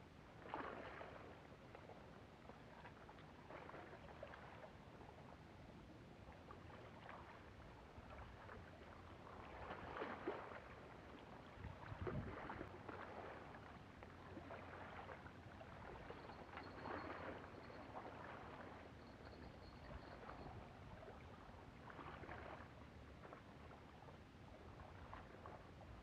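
Small waves lapping and sloshing against the rocky shoreline, faint and irregular, swelling every second or two.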